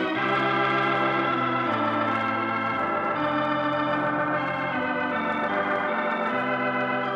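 Organ music: held chords over a bass line that steps to a new note every second or so.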